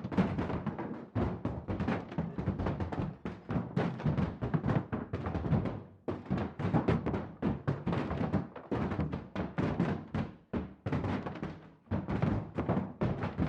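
Fists punching a wall over and over: a fast, irregular flurry of dull, heavy thuds, several a second.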